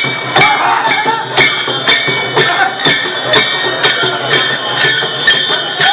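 Devotional temple music: metal cymbals or bells struck in a steady beat about twice a second, ringing on between strikes, with voices singing along.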